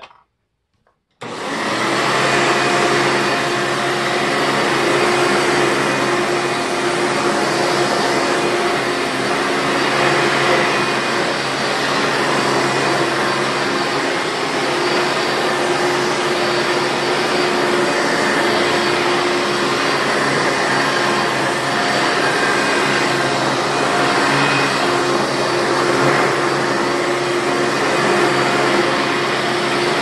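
Hoover Elite direct-air upright vacuum cleaner switched on about a second in and running steadily on carpet, being checked for a slipping belt. Its motor has had only one of its two bearings replaced.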